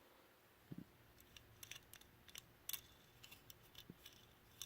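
Faint, irregular small clicks and ticks from a Hot Wheels die-cast '67 Shelby GT500 being handled and rolled, with a couple of soft knocks. The car rolls poorly because of a front wheel that seems pushed in.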